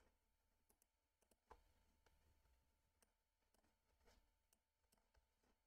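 Near silence, broken by a few faint computer mouse clicks, the clearest about one and a half seconds in and another about four seconds in.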